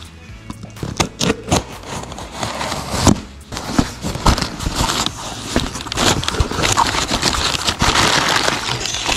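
A cardboard shipping box being opened by hand: a string of sharp scrapes and taps of cardboard and packing tape, then, from about halfway on, a continuous crackling rustle of crumpled kraft packing paper being pulled out of the box, louder near the end.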